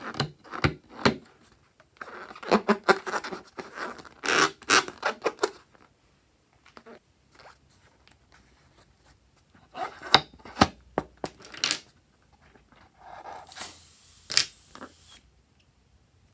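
Hands rubbing and gripping a slime-filled rubber balloon, making scratchy squeaks and rustles in several bursts, with a near-quiet stretch in the middle. Near the end come snips and scraping as the balloon is cut open.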